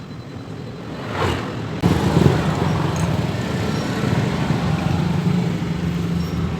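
Automatic scooter's engine and CVT running steadily, cutting in suddenly about two seconds in, with a low even hum.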